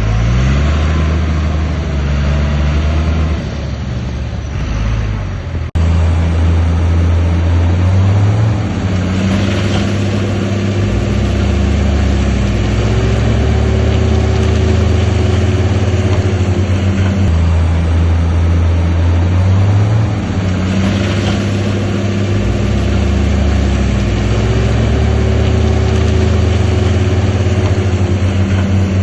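Diesel engine of heavy earth-moving machinery running loud and steady, revving up twice and holding the higher pitch each time. An abrupt break about six seconds in.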